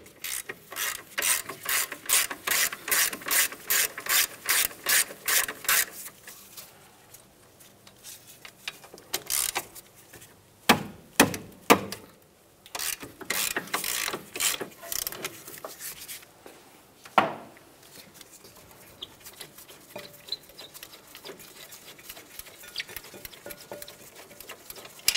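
Hand ratchet with a 15 mm socket clicking in quick runs, about three or four clicks a second, as the brake caliper bracket bolts are backed out, with a few louder knocks in between.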